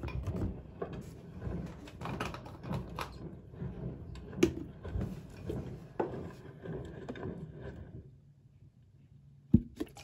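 Plastic laundry-perfume bottles and a plastic cup being handled and set down: scattered knocks and clicks with rustling in between, the loudest knock about halfway through, then a quieter spell before a sharp click near the end.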